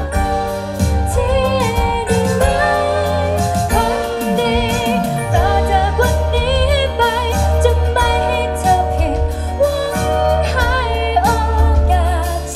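Live band music with a lead vocalist singing a held, wavering melody over heavy bass and a steady beat.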